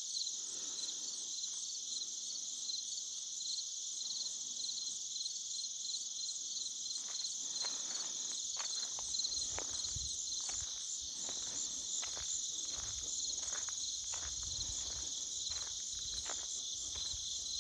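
A steady, high-pitched chorus of crickets with a fast pulsing trill. About seven seconds in, footsteps start, roughly two a second.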